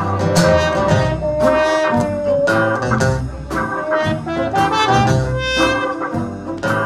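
Trumpet solo muted with a handheld cup over the bell, playing held, bending notes over the band's guitar and bass accompaniment.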